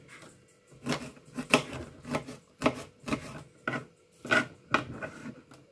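Kitchen knife slicing garlic cloves on a plastic cutting board: an irregular string of sharp taps and scrapes, about two a second, that stops near the end.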